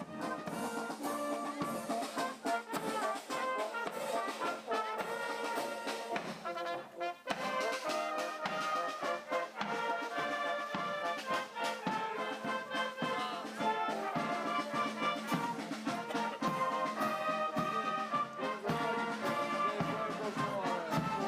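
A brass band playing, trumpets and trombones carrying the tune over drum beats.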